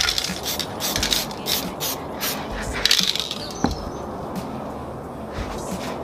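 Aerosol spray-paint can hissing in short bursts, one at the start and another about three seconds in, with scattered clicks between them.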